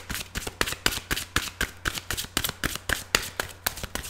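Tarot cards being shuffled by hand: a quick, steady patter of card slaps, several a second.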